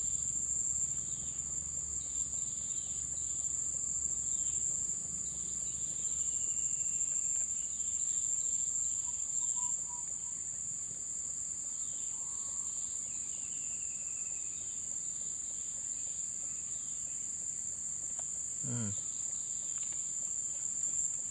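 Steady high-pitched insect chorus, like crickets, with scattered short bird chirps over it.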